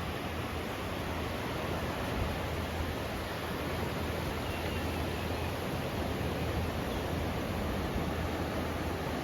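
Steady rushing noise of wind on the microphone and surf, with a constant low rumble underneath.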